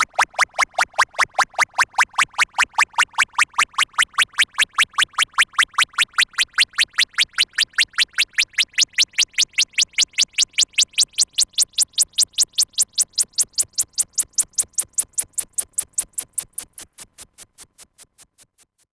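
Synthesized sci-fi sound effect: a rapid train of electronic pulses, about six a second, climbing slowly in pitch, then fading out over the last two seconds.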